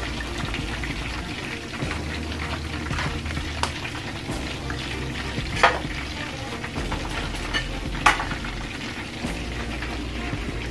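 Buffalo sauce of ketchup and onions sizzling in a wok while a spatula stirs and scrapes the pan, with two sharp knocks of the spatula on the pan about halfway through. Chicken wings deep-frying in oil in a second pan add to the sizzle.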